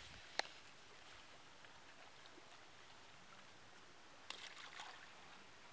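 A handful of fish feed thrown onto a pond, landing on the water with a brief faint patter about four seconds in. A single sharp click comes just after the start; otherwise near quiet.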